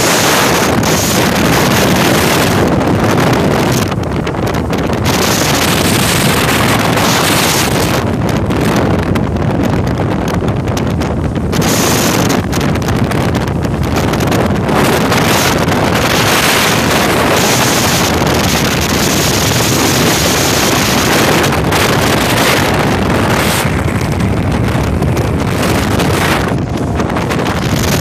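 Loud wind buffeting the microphone on a Ranger bass boat running fast across a lake, coming and going in gusts. Under it are the boat's motor and the hull running on the water.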